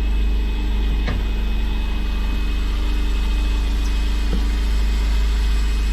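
Fishing boat's engine running steadily with a deep, constant rumble, with a couple of faint clicks.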